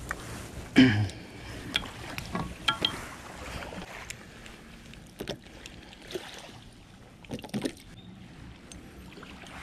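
Metal tube sections of a camping cot frame knocking and clacking together as they are handled and fitted, with one heavy thump about a second in and scattered sharper knocks after it.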